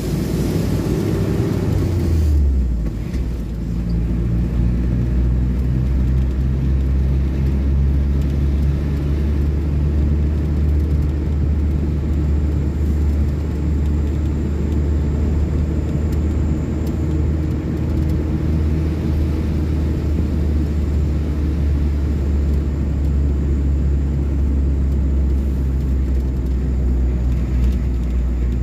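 Car driving, heard from inside the cabin: a steady low rumble of engine and road noise. A higher hiss at the start dies away about two seconds in.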